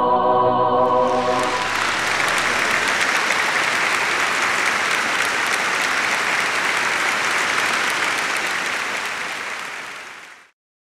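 The final held chord of choir and orchestra ends about a second and a half in, as an audience breaks into steady applause. The applause tapers and cuts off shortly before the end.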